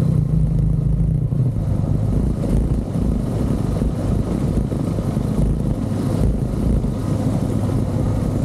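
KTM 390 Adventure's single-cylinder engine running steadily under way at low road speed over a rough, broken road, with wind and road noise over it.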